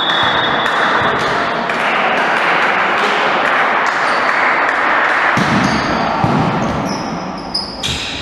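Indoor volleyball in an echoing sports hall: a referee's whistle held for a moment, ending about a second in, then a steady din of the hall, with sharp ball hits near the end.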